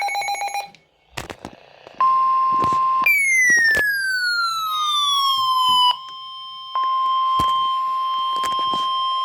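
NOAA Weather Radio alert signalling a new warning. It opens with the last of a burst of rapid, buzzing digital header tones, followed by a few clicks. Then comes a steady high alarm tone, joined about three seconds in by a falling siren-like sweep, and the steady tone breaks off briefly near the middle.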